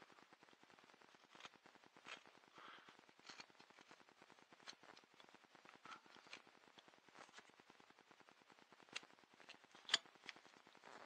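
Carving knife paring thin cuts from a small wooden canoe paddle: faint, scattered short scraping cuts, with a sharper click about ten seconds in.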